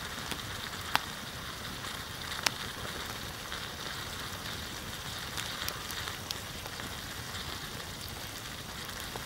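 Small wood campfire burning and crackling: a steady hiss with scattered sharp pops, the two loudest about a second and two and a half seconds in.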